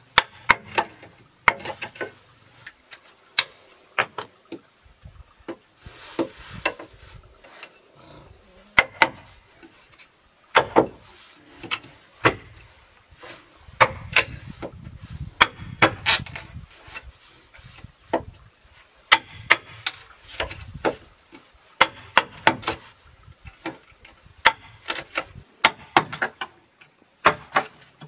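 Chisel knocked into and prying through the inner node walls of a green bamboo pole, struck with a wooden mallet: irregular sharp knocks and splintering cracks with some scraping, as the pole is hollowed into a water pipe.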